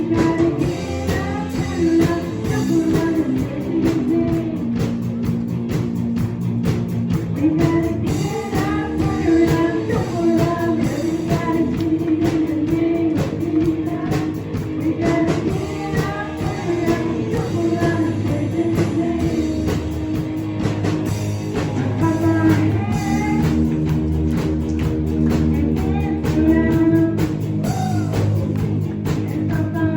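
Music: a song with a singing voice over guitar and drums, playing steadily.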